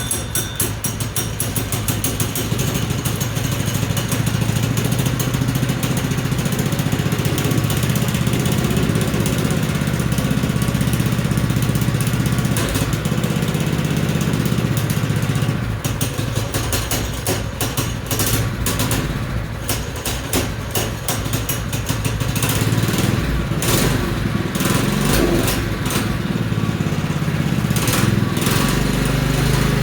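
Small engine running steadily, its speed rising and falling slightly, with clicks and rattles over it.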